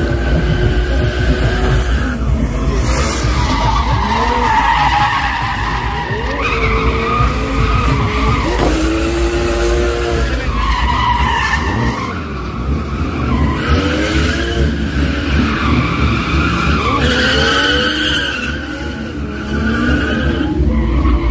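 A drift car's engine revving up and down over and over as its tyres spin and squeal in long, wavering stretches.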